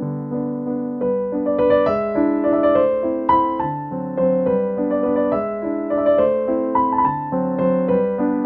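Background piano music: a gentle melody of held notes over chords.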